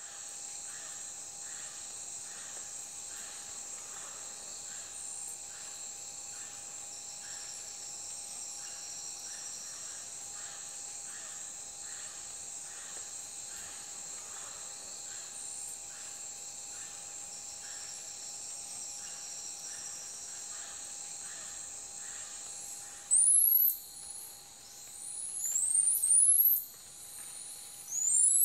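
Rainforest insect chorus: a steady high buzzing with a softer pulsing about twice a second underneath. In the last few seconds, loud, short, high chirps sweeping upward in pitch cut in several times over it.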